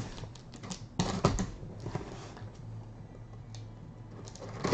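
Scattered clicks of a computer keyboard and mouse, a cluster about a second in and a few more near the end, over a low steady hum.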